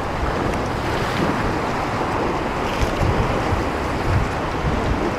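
Sea surf washing against a rocky shore, with strong wind buffeting the microphone in an uneven low rumble.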